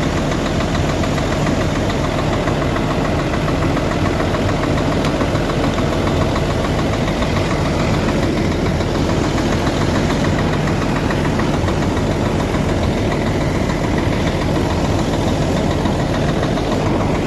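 Semi truck's diesel engine running steadily at a fast idle, about 900 rpm, warming up after a cold start.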